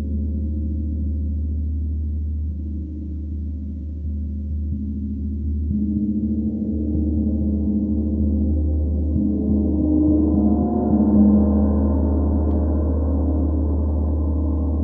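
32-inch Sri Yantra gong played with a soft Ollihess 355 mallet. A low drone with many ringing overtones swells in waves as the gong opens up, loudest about eleven seconds in. The soft attack leaves no audible strikes.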